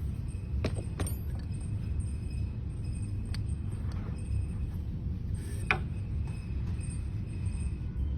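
A steady low rumble with a few light, sharp clicks and taps, the loudest about six seconds in.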